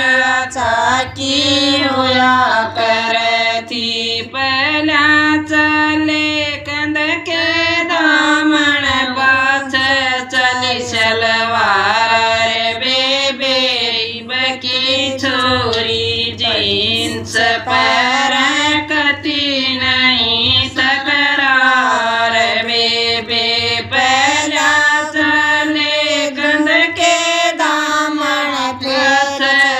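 A woman singing a Haryanvi folk song (geet) in a plain, chant-like melody, the sung lines running on without a break.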